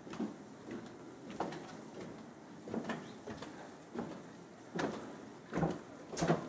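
Shovel digging into and scraping packed snow, in irregular strokes about a second apart, the loudest near the end.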